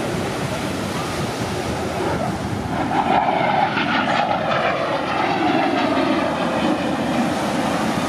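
Jet fighter flying past, an F-16 of the U.S. Air Force Thunderbirds: its engine noise swells to its loudest about three seconds in, then eases off a little.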